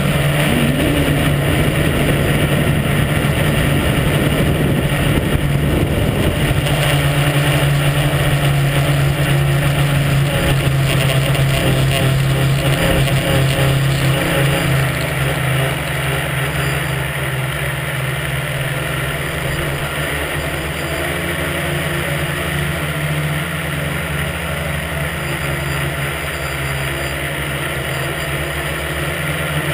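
Tricopter's three motors and propellers running steadily with a buzzing drone, heard from the onboard camera. It gets a little quieter about halfway through.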